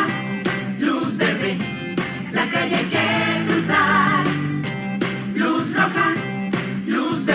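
Upbeat pop music for a children's song, with a steady drum beat and some singing voices.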